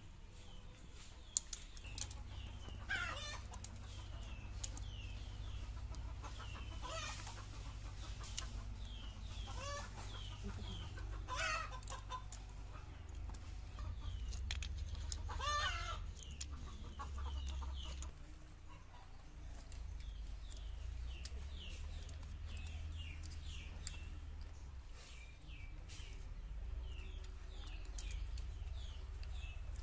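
Chickens clucking, with about five louder calls spread over the first half, while small birds chirp repeatedly throughout. Light clicks of freshwater mussel shells being handled and prised open come and go underneath.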